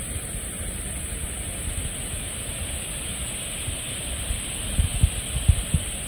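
Myrtle Falls rushing steadily. Wind buffets the microphone with low gusts in the last second or so.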